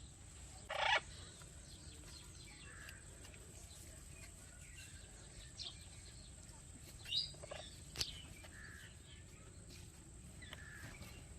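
Ringneck parakeet giving short, spaced-out chirps and squawks. The loudest comes about a second in and another about seven seconds in, with a sharp click near eight seconds.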